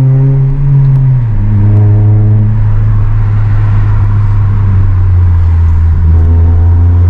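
Honda Civic Type R (FN2) 2.0-litre four-cylinder engine heard from inside the cabin while driving, with tyre and road noise; the engine drone drops in pitch about a second in, then holds steady. It is a very loud Civic.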